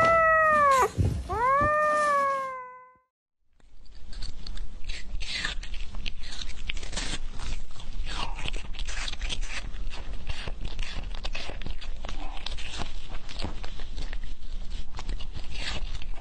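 A tabby kitten gives two drawn-out meows, each rising and then falling in pitch. After a short break comes a long run of dense crackling and clicking.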